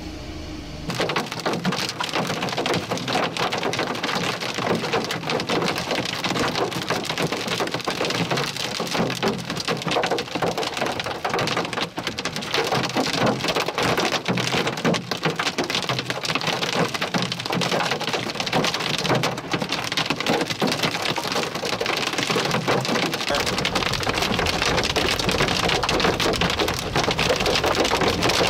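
Hail and heavy rain pelting a vehicle, heard from inside as a dense, rapid clatter of impacts that starts suddenly about a second in. A low rumble joins in the last few seconds.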